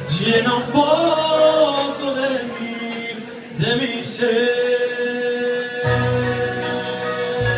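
Male vocalist singing a slow ballad with a jazz big band, the voice carrying long held notes over light accompaniment. About six seconds in, the band comes in underneath with a low sustained chord.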